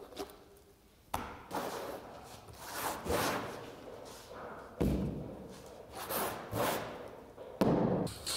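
Thick violet paint being poured from a bucket and spread across a canvas on a table with a broad tool: rough scraping strokes with knocks and thumps of the tool and bucket on the table-top. There are three knocks, about a second in, around five seconds in, and the loudest near the end.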